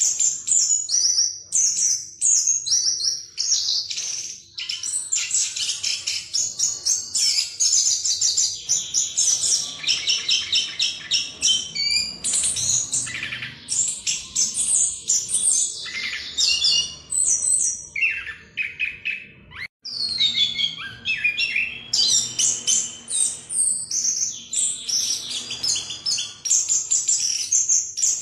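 Chestnut-capped thrush (anis kembang) singing its continuous rolling 'ngerol' song: a long, fast run of varied high whistles and trills, broken only by a brief pause about two-thirds of the way through.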